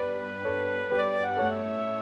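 Soft, sad background music: a slow melody of held notes that change pitch about every half second.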